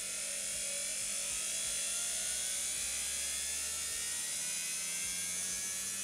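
Washing-machine universal motor running on 220 V AC through a TRIAC dimmer, its whine rising slowly in pitch as the speed is turned up. It stays short of full power, which is put down to a 500 kilo-ohm resistor in the dimmer that limits the TRIAC's firing angle.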